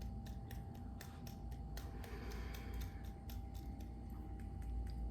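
Fingertips tapping on the body's EFT points, light quick taps at about four a second, over a low steady hum.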